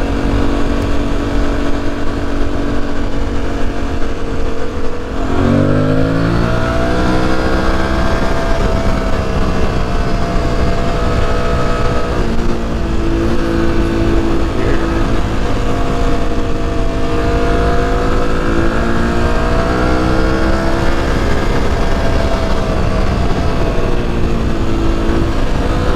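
Aprilia Tuareg 660's parallel-twin engine running under way, heard from the rider's seat. About five seconds in its pitch dips sharply, then rises again over a couple of seconds as it pulls. After that it holds a steady cruise, the pitch gently rising and falling.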